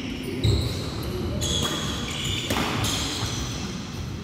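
Badminton doubles play on a wooden hall floor: several short, high-pitched shoe squeaks, with thuds of footsteps and racket strikes on the shuttlecock. The sharpest thud comes about half a second in.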